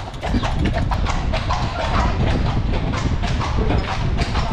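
A carriage horse's hooves clip-clopping on the street at a walk as it pulls the carriage, a quick run of hard clicks over a steady low rumble.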